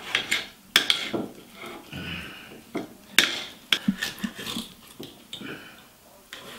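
Knife and fork clicking and scraping against a plate as a steak is cut into pieces, with sharp clinks about a second in and about three seconds in. An Airedale terrier makes small noises close by.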